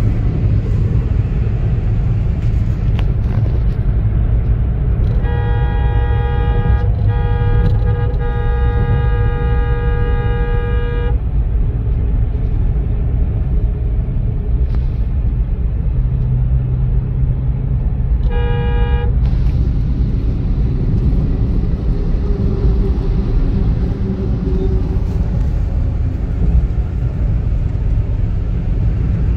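Steady low rumble of a car's engine and tyres heard from inside the cabin at highway speed. A single-pitched vehicle horn sounds for about six seconds from about five seconds in, broken twice by brief gaps, then gives one short toot about eighteen seconds in.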